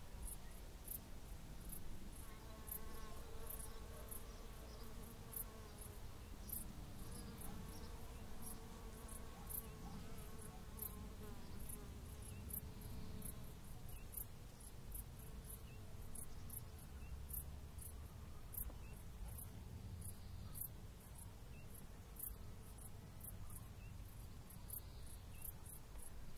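Cricket chirping: short, very high-pitched chirps about twice a second, slightly irregular, over a faint low rumble.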